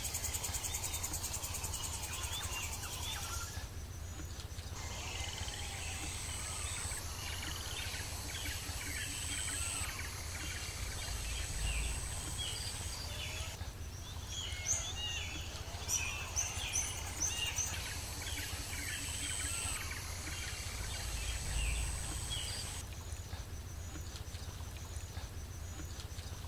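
Outdoor ambience of many birds chirping and calling, over a steady high-pitched insect trill and a low steady hum. The background shifts abruptly a few times.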